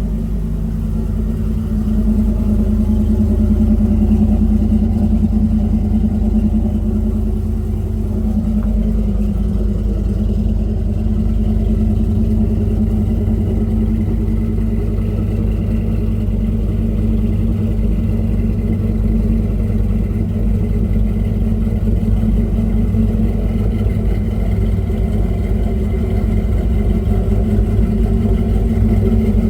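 A car engine idling steadily, its low running note unbroken throughout.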